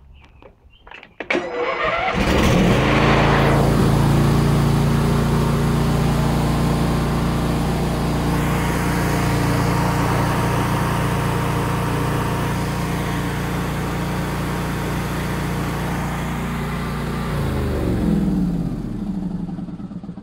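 Husqvarna YTH2348 riding mower's 23-horsepower Briggs & Stratton Intek engine cold-started: a few clicks, a brief crank, and it catches about two seconds in. It runs steadily, then winds down and stops near the end.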